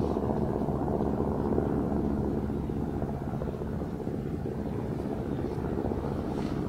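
Steady low rumble of distant engine noise, with a faint low hum that fades out a couple of seconds in.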